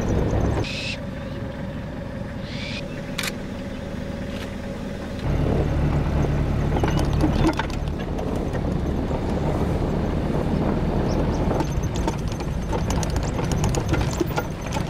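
Safari vehicle's engine running as it drives, a steady low drone that gets louder about five seconds in.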